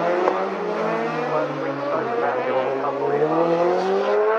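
Racing motorcycle engines running hard on the road course, more than one pitch heard at once: one sinks over the first few seconds while another climbs steadily near the end as a bike accelerates.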